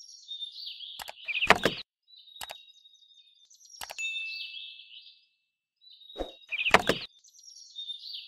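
Small birds chirping in short repeated phrases, cut across by several sharp knocks and taps of wooden popsicle-stick fence pieces set down on the model's base, the loudest about one and a half seconds in and again near seven seconds.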